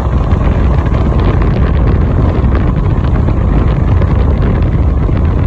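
Wind buffeting the microphone over the steady rumble of a moving car, loud and even throughout.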